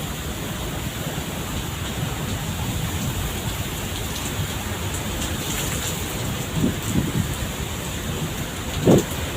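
Heavy rain and strong wind storm, a steady rushing noise, with a few brief low thumps near the end.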